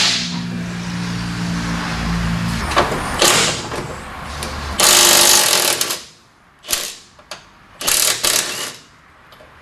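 Pneumatic impact wrench rattling in bursts on rusty undercarriage bolts: two short bursts about three seconds in, a longer loud burst of about a second near the middle, then several short bursts near the end. A steady low hum runs under the first few seconds.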